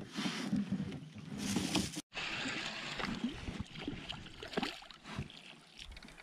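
Water sloshing and splashing beside an inflatable boat, with handling noise, as a hooked fish is reeled in. The sound cuts out for an instant about two seconds in.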